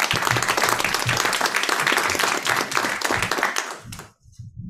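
Audience applauding: dense clapping from many hands that stops abruptly about four seconds in.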